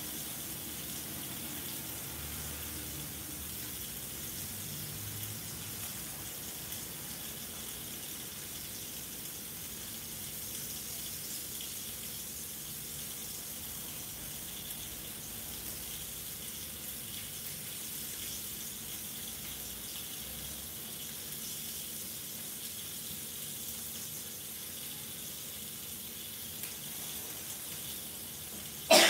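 A salmon steak frying in oil in a cast-iron skillet, giving a steady, even sizzle. A sudden loud sound cuts in right at the end.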